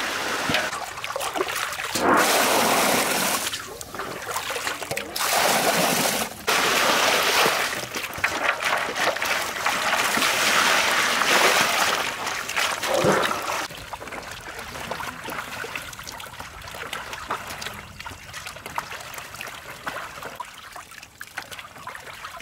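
Water pouring and splashing in several loud bursts for about thirteen seconds, then a fainter steady trickle.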